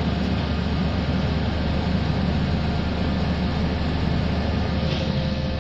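Pile driving rig's engine and machinery running steadily, with no hammer blows.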